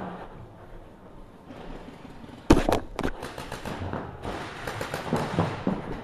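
Paintball markers firing: a quick string of sharp pops about two and a half seconds in, over low field noise.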